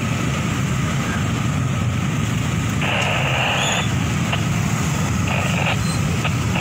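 Many small motorcycle and scooter engines idling and running together in a stopped crowd of riders, a steady low drone. A higher, buzzy blast lasts about a second about three seconds in, with shorter ones near the end.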